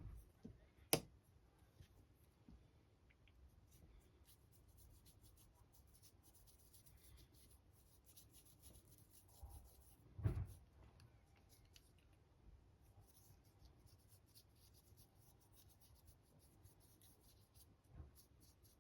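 Faint, scratchy brush strokes of a paintbrush working acrylic paint onto a 3D-printed figure, with a sharp click about a second in and a dull knock about ten seconds in.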